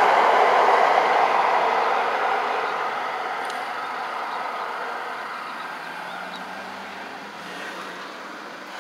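Metro Blue Line light-rail train passing and moving away, its noise fading steadily.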